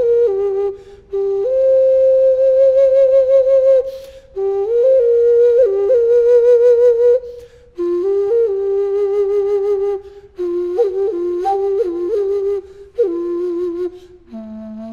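A Maya flute played solo in short melodic phrases: held notes with a wavering vibrato and quick steps between neighbouring pitches. Each phrase is separated from the next by a brief pause for breath, about five times.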